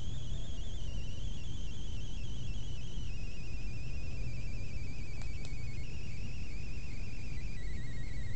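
High, rapidly warbling electronic whine that sinks slowly in pitch in small steps, over a steady low hum.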